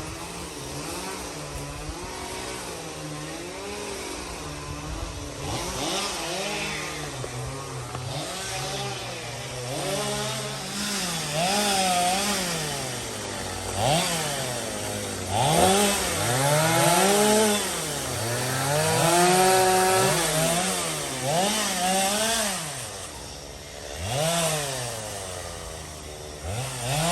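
Chainsaw engine revving up and down again and again while cutting wood, its pitch rising and falling every second or two.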